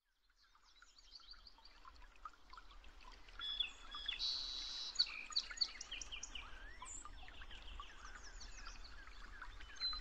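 A chorus of songbirds chirping and calling, many short chirps, whistles and quick trills overlapping. It fades in from silence over the first couple of seconds.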